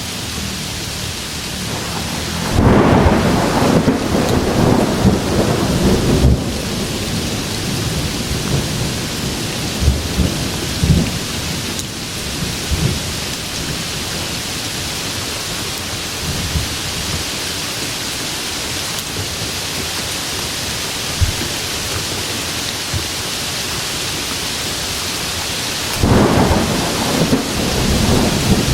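Steady heavy rain with thunder rumbling over it: a loud rolling peal begins a few seconds in and lasts about four seconds, a few lighter rumbles follow, and another peal starts near the end.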